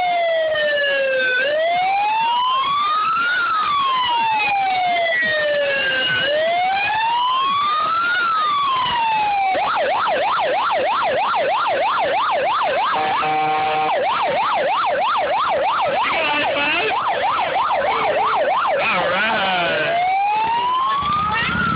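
Several emergency-vehicle sirens sounding together in slow wails, each rising and falling over about five seconds. About ten seconds in they switch to a fast yelp of roughly three to four sweeps a second, broken by a brief horn blast, and a slow wail returns near the end.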